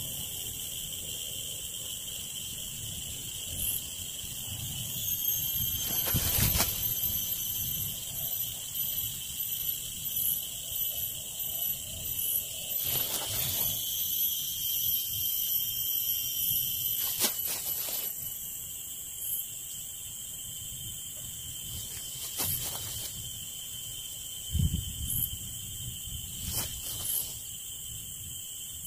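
Steady high-pitched insect drone, typical of crickets or cicadas, held on one pitch. A few short clicks and some low rustling come from hands working budwood and seedlings.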